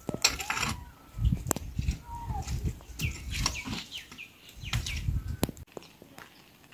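Sharp knocks and scraping from a length of bamboo being worked on muddy ground, with short high bird chirps in between. The knocking stops near the end.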